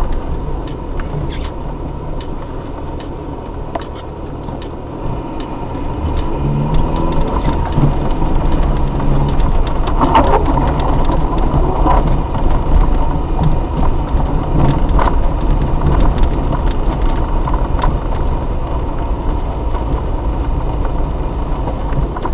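Car driving on a packed-snow road, heard from inside the cabin: a low engine and tyre rumble with scattered clicks and knocks. It eases off around four seconds in and picks up again from about six seconds.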